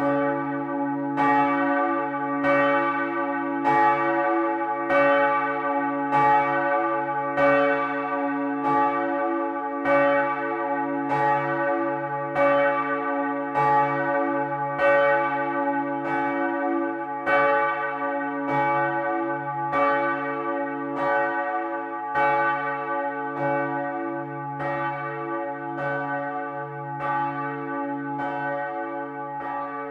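A large swinging church bell from a seven-bell peal, its clapper striking at an even pace, about three strokes every two seconds, with a deep steady hum ringing on beneath. It grows somewhat quieter near the end.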